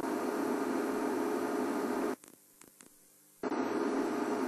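Steady hum and hiss of static, with no other sound standing out. A little over two seconds in it cuts out to near silence for about a second, with a few faint clicks, then comes back unchanged.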